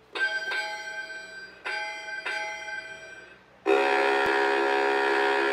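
Rocky the Singing Lobster animatronic toy, set off by its button: two pairs of ringing electronic notes that die away, then about 3.7 s in its song music starts loudly.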